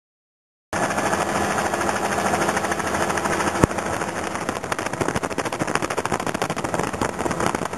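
Helicopter heard close up, its rotor chopping in a rapid, steady run of beats that starts suddenly just under a second in, with one sharp knock a few seconds later.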